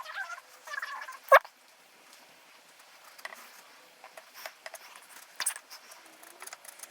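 Short, high-pitched animal calls for about the first second and a half, with a sharp loud knock among them, then faint scattered clicks and ticks.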